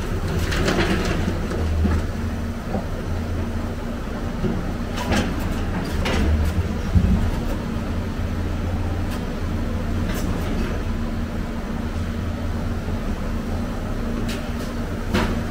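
Excavator diesel engine running steadily, with a few sharp metallic clanks from scrap metal being handled in the dump truck bed.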